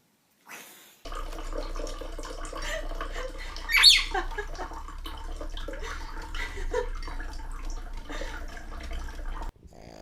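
Water running and splashing, as into a bathtub or sink, with many small clicks and a low hum. A short, sharp rising squeal comes about four seconds in.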